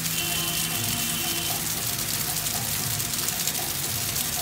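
Heavy rain pouring steadily onto wet paving and parked cars: a dense, even hiss of drops and splashing.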